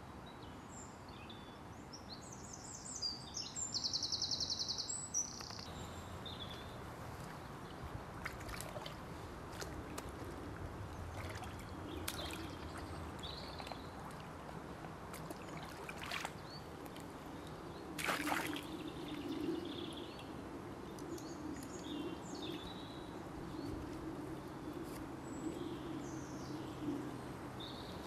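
Birds singing, with a bright trilling song about four seconds in, then water sloshing and gurgling as a soft plastic water bottle is held under a pond's surface and fills, with a few short splashes along the way.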